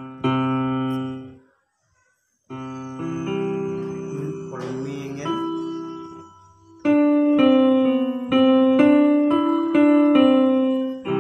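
Keyboard notes played on a Worlde Panda Mini MIDI controller and sounded by FL Studio Mobile on a phone through a loudspeaker. A short chord, a brief gap, held chords, then a line of separate notes about two a second over lower held notes.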